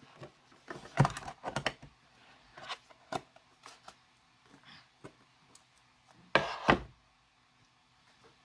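Clicks and knocks of plastic slime containers and lids being handled and set down, with a louder clatter about six and a half seconds in.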